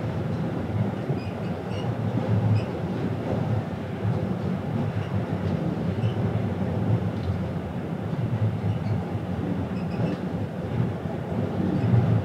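Steady low rumble of the car ferry Jumbo Ferry Aoi underway, heard aboard: a continuous drone of engine and hull noise that swells and eases slightly without stopping.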